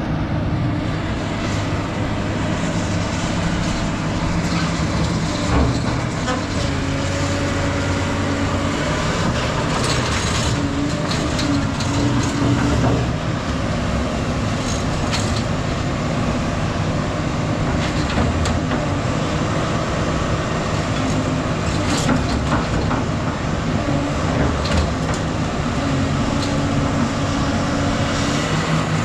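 Heavy diesel scrap-handling machine running steadily, with occasional clanks of scrap steel being moved.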